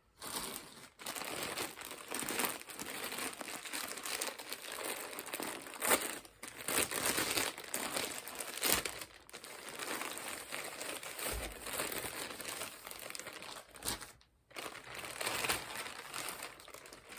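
Packaging crinkling and rustling as parcels are handled and opened, with a brief pause about two-thirds of the way through.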